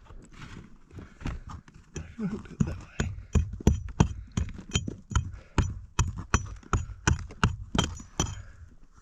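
A hammer chipping at cave rock: sharp ringing strikes, a few soft taps at first, then steady hard blows about three a second from about three seconds in.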